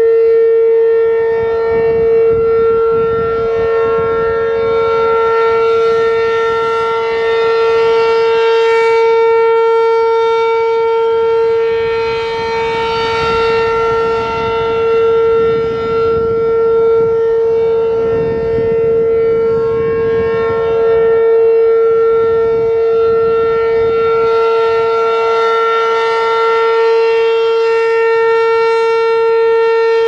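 ACA P-15 Penetrator electromechanical outdoor warning siren sounding its steady Alert signal: one held tone at a constant pitch, swelling and fading as the rotating horn sweeps toward and away.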